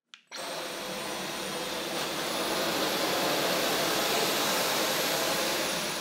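Dyson V12 Detect Slim cordless stick vacuum switched on with a click of its power button. Its motor starts at once and runs with a steady rush of air and a high whine. The whine steps up in pitch about two and a half seconds in and drops back near the end.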